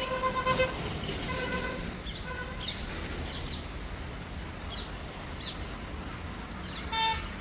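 Traffic rumble with a vehicle horn tooting a few short times in the first two seconds and once more near the end, and short bird chirps in between.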